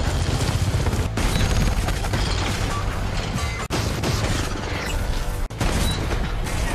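Film action soundtrack: explosions and crashing impacts around a tracked armoured vehicle, with music underneath. The dense mix breaks off for an instant twice where the scene cuts.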